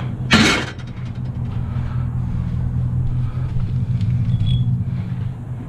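Aluminum scrap thrown onto a pickup truck bed: one loud metallic crash about half a second in, with a few short rattles after it, over a steady low rumble.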